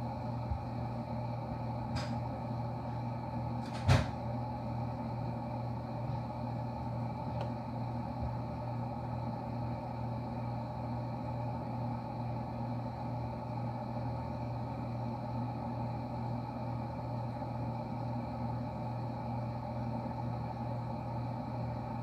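Steady electrical hum of a refrigerator running with its door open, with a fainter click about two seconds in and a single sharp knock about four seconds in.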